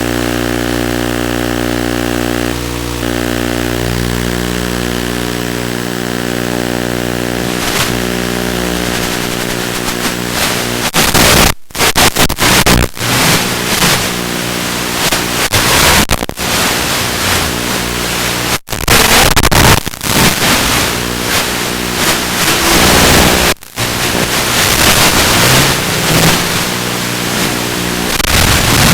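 Small FPV quadcopter's brushless motors and propellers whining. The whine holds a steady pitch for several seconds, then grows louder and rises and falls with the throttle, cutting out suddenly for a moment three times.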